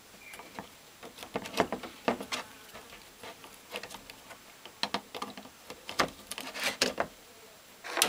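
Irregular small clicks and scrapes as wires and a screwdriver are worked into the plastic terminal block of an air-compressor pressure switch.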